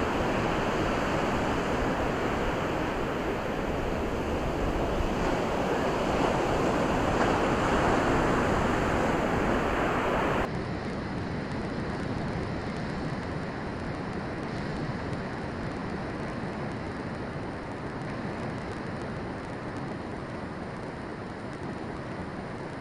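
Surf on a sandy beach, a steady rushing wash of waves. About ten seconds in it cuts abruptly to a quieter, more distant wash.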